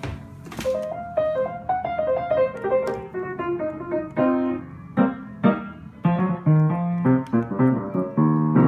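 Wm. Knabe & Co. grand piano played by hand: a run of single notes stepping down in pitch, then louder chords lower on the keyboard, ending on a loud held chord.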